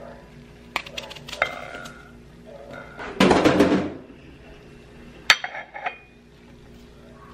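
Cutlery and dishes clinking in several sharp knocks. A louder, noisy rustle lasts under a second about three seconds in. Quiet background music runs underneath.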